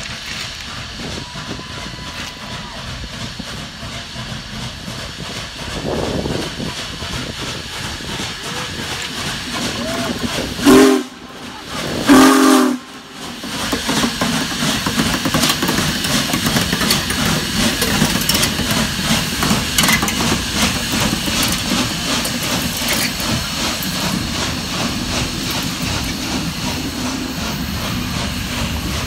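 Union Pacific Big Boy 4014 steam locomotive passing close by. Its steam whistle gives two short blasts about a second and a half apart, around ten seconds in, and these are the loudest sounds. Then comes a steady hiss of steam and the noise of the locomotive's wheels and running gear going past.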